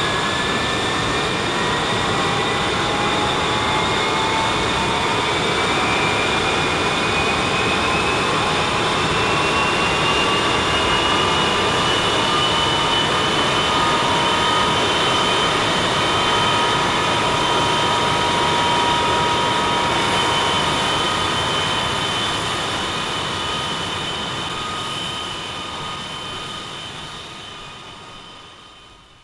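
Boeing 707 jet engines running: a steady roar with a high turbine whine that climbs slowly in pitch and then holds. The sound fades out over the last few seconds.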